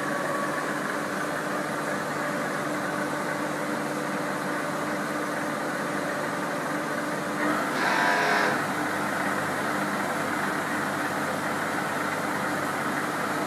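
Maho MH 700 C four-axis CNC milling machine running a program: a steady mechanical drone with several held steady tones. About eight seconds in, a louder rush of noise lasts about a second.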